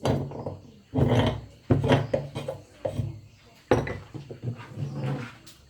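Meat grinder grinding a crunchy snack, in about six short bursts.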